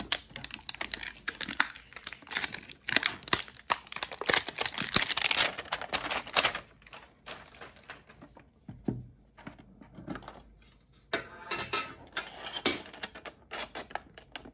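Plastic packaging being torn and crinkled while a Pokémon card tin is unwrapped and opened: dense rustling and sharp clicks, thinning out after about seven seconds, with another burst of crinkling near the end.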